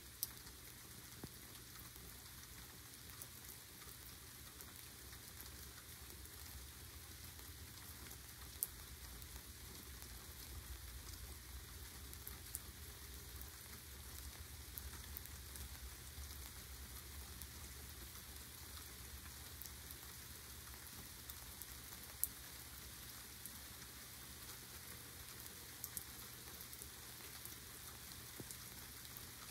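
A full rain shower: an even hiss of rainfall, with sharp drip taps now and then.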